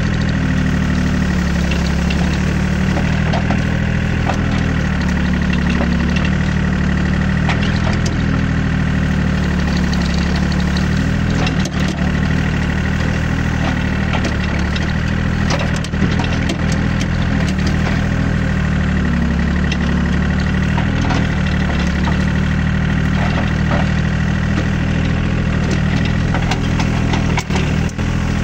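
Hitachi EX30 mini excavator's diesel engine running steadily, close up from the operator's seat, with a steady high whine over it. Scattered sharp knocks and crackles come as the bucket scrapes and digs through dry grass and brush.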